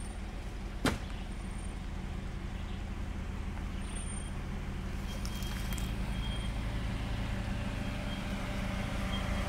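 Engine of a Mitsubishi Pajero SUV running steadily as it crawls up a dirt trail toward the listener, growing slowly louder as it nears. A single sharp click about a second in.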